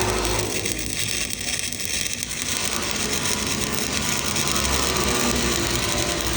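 Stick-welding arc on a 6010 electrode, a steady crackle, with a steady low hum under it.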